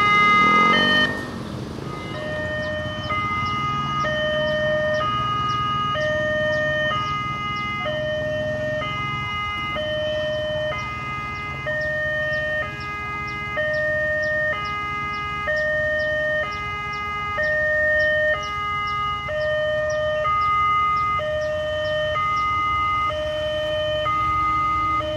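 Railway level-crossing warning alarm sounding a two-tone electronic signal that alternates between a high and a low note, each held under a second, with a faint rapid ticking above it. A passing motorcycle's engine is loudest in the first second.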